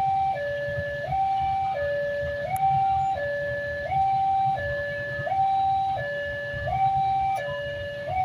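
Railway level-crossing warning siren sounding a two-tone hi-lo alarm, switching between a higher and a lower tone about every half second without a break, the warning that a train is approaching. A low rumble runs underneath.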